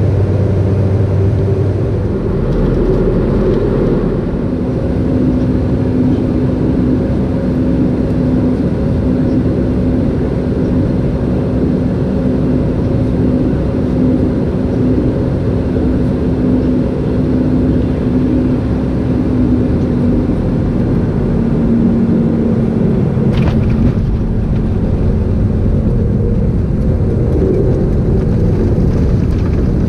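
Cabin noise aboard a Sukhoi Superjet 100 airliner: the steady rush and rumble of its SaM146 turbofan engines and airflow, with a held hum whose pitch drops slightly about twenty seconds in. There is one brief click about three-quarters of the way through.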